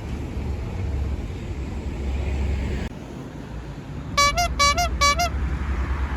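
A steady low engine rumble, cut off suddenly about three seconds in, then a multi-tone 'telolet' bus horn sounding three quick musical toots, each rising and falling in pitch.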